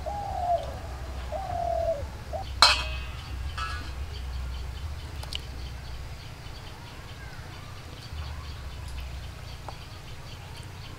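Dove cooing, a few arching calls, then a single sharp knock with a short metallic ring about two and a half seconds in. Faint high chirping runs on after it over a steady low rumble.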